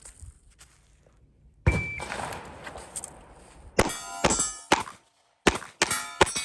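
Shot timer start beep, then a string of handgun shots fired in quick pairs and groups during a timed cold start drill, each shot followed by a metallic ringing.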